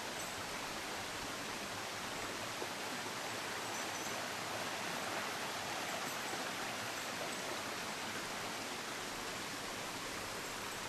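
Mountain stream rushing over rocks, a steady hiss of running water that swells slightly in the middle.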